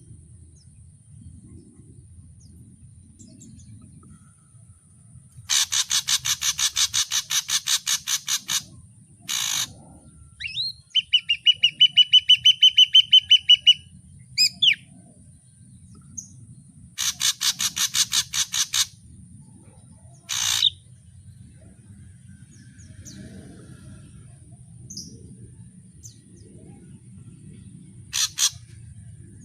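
Ashy drongo singing in varied phrases: two fast, harsh rattling series of about ten notes a second, a rapid clear whistled trill in between, and a few short single calls, with quiet pauses between bouts.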